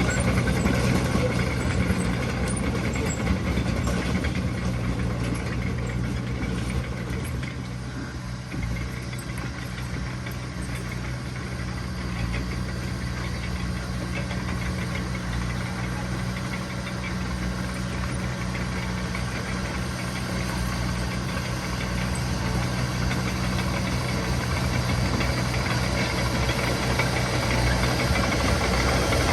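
Heavy diesel engine of earthmoving machinery running steadily, easing off somewhat about a quarter of the way in and building up again near the end.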